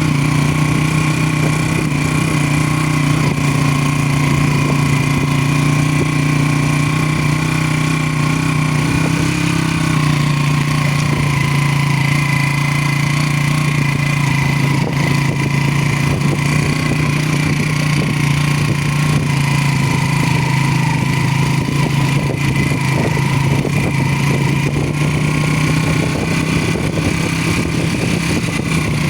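Motorcycle engine running steadily at low revs, its pitch shifting only slightly now and then.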